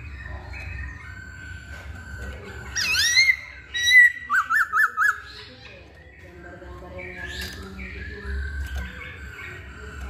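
Black-throated laughingthrush singing loud, clear whistled phrases: a rising swoop about three seconds in, then a quick run of four fluting up-and-down notes, with softer whistles before and after.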